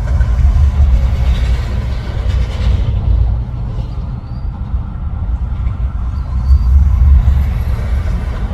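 Low, continuous rumble of traffic crossing an interstate highway bridge overhead, swelling again about seven seconds in.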